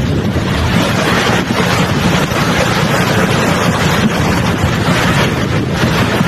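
Loud, steady rush of fast-flowing floodwater, with wind buffeting the microphone.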